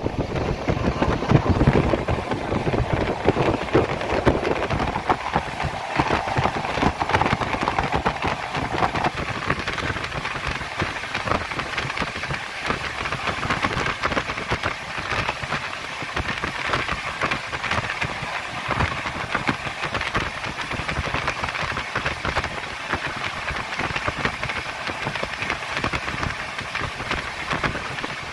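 Express passenger train running at speed, heard from inside the coach: a steady rushing clatter of wheels on the rails, with a mid-pitched hum that stops about nine seconds in.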